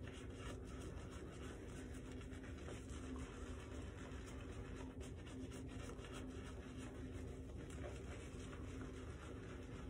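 Shaving brush with a Declaration Grooming B5 knot swirling shave-soap lather over a stubbled face and beard: a faint, continuous scratchy swishing of bristles on skin as the lather is built.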